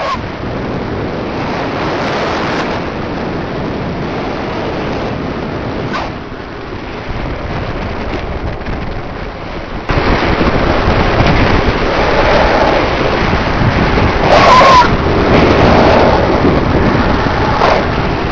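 Wind buffeting the microphone at speed on a downhill longboard run, a steady rushing noise that gets louder about ten seconds in.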